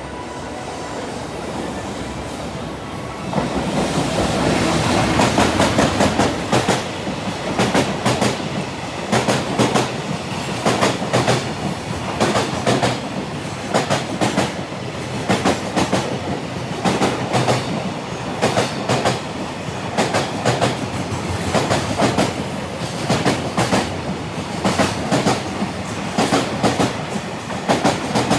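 A JR Freight EF210 electric locomotive and a long string of Koki container wagons pass at speed, the wheels clattering over the rail joints in repeated clusters of clicks. The sound builds and gets much louder about three seconds in.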